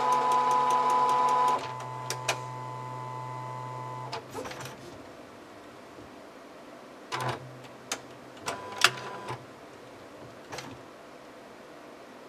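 Epson inkjet printer mechanism running with its covers off: a motor whine at a steady pitch for about a second and a half, dropping to a quieter hum that stops about four seconds in. Then scattered clicks and short motor whirrs follow.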